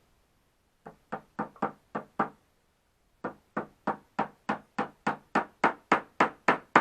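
Hammer driving nails into a wooden box panel: about six quick taps, a short pause, then a steady run of blows about three a second that grow louder as the nail goes home.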